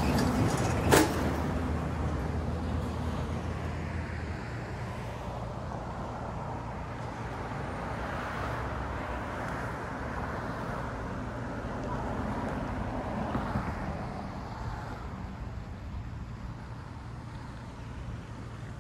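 Road traffic passing below: a vehicle's engine hum fades away over the first few seconds, then steady tyre and engine noise from passing cars. A single sharp click about a second in.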